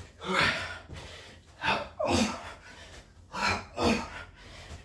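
A man breathing hard through the mouth while doing burpees, with three pairs of sharp in- and out-breaths about every second and a half to two seconds.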